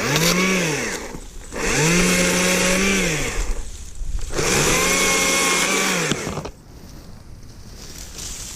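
Stihl MSA 120 C battery chainsaw run in three bursts of the trigger, its electric motor and chain whirring up to a steady high pitch, holding, then winding down each time; the third and longest burst ends about two-thirds of the way in.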